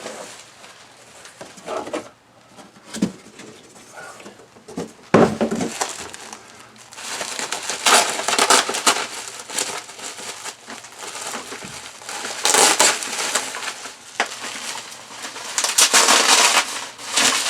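Upgrade-kit parts being unpacked: the box and its packing rustling and crinkling in irregular spells. The loudest spells come about halfway through and near the end.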